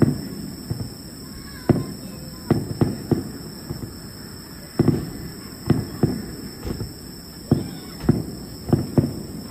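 Fireworks bursting in the distance: an irregular string of sharp bangs, roughly one or two a second, each with a short echo.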